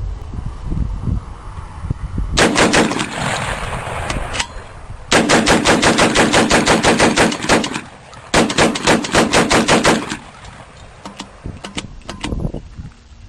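Belt-fed 12-gauge shotgun upper on an AR-15/M16 lower firing three long, rapid bursts of shots, one after another with short pauses between.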